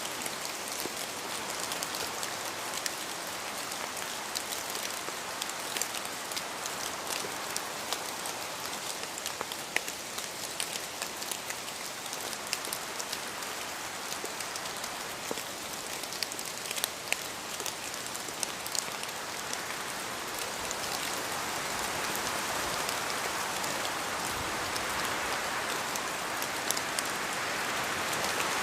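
Steady rain falling, an even hiss with many sharp drip ticks of single drops hitting a surface, swelling a little louder in the last third.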